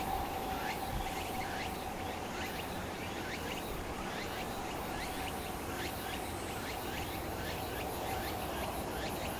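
Outdoor ambience: a string of short, high, falling chirps from insects or birds, about two a second, over a steady low hum.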